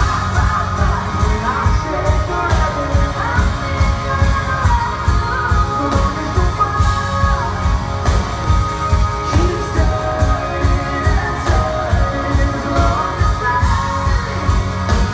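Country-pop band playing live: vocals over drums with a steady beat, acoustic and electric guitars.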